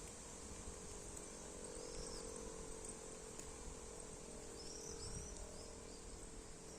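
Quiet outdoor ambience: a steady high-pitched hiss under a faint low hum, with a few short bird chirps about two seconds in and again around five seconds.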